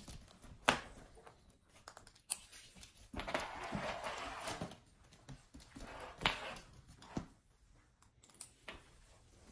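Dogs moving about on a wooden floor: scattered clicks and taps of claws and harness, with nylon leash and harness rustling. A longer rustling noise runs from about three to four and a half seconds in.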